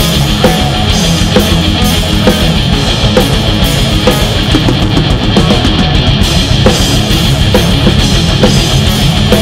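Heavy metal music, instrumental: distorted electric guitars over a steadily driving drum kit, with no vocals.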